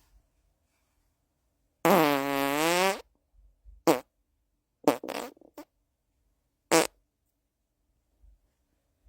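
Human farts: one long pitched fart of about a second that dips and then rises in pitch, followed by several short ones over the next few seconds.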